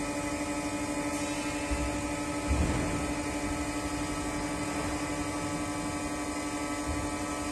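Vacuum pump running steadily with a constant hum, holding the mixer chamber at its required vacuum. A brief low thump about two and a half seconds in.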